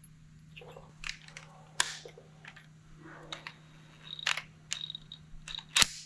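Metal tools and engine parts being handled: irregular clinks, taps and knocks, with a short metallic ring about four seconds in and a sharp click near the end.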